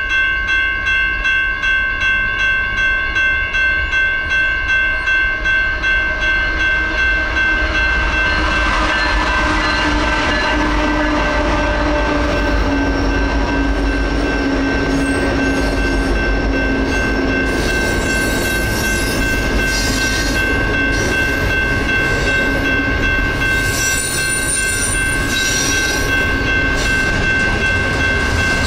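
Railroad crossing bells ringing steadily with a beat of about two strokes a second. A Union Pacific diesel-hauled double-stack intermodal freight train passes through the crossing: the locomotives rumble by from about eight seconds in, with a slowly falling engine tone, and then the container cars roll over the crossing with wheel clatter.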